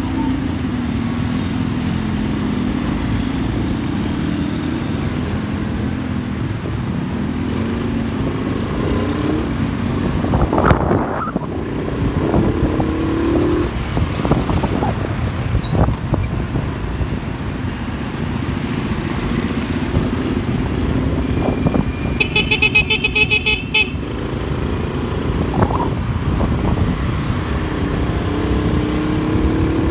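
Motorcycle engine running through slow city traffic, its pitch rising and falling with the throttle, with other vehicles around. About two-thirds of the way through, a vehicle horn sounds as a quick run of short toots lasting about two seconds.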